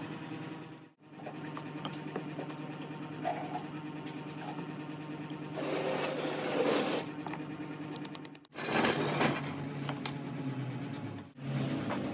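A small electric motor running with a steady hum, broken by short cuts, with louder hissing stretches about halfway through and again later.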